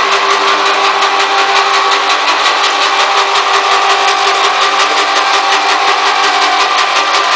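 Wall-plastering machine's electric drive and gearing running: a steady mechanical hum with several held tones and a fast, even ticking throughout.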